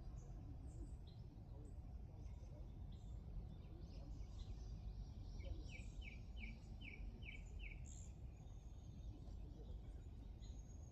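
Several small birds chirping and calling, with a run of about eight quick, evenly spaced repeated notes in the middle, over a steady low background hum of outdoor noise.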